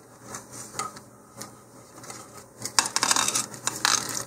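Handling noise from model rocket recovery gear being packed by hand: soft clicks and rustles, then, about three seconds in, a louder stretch of crinkling and light clinks as the folded plastic parachute and the metal snap swivel are handled.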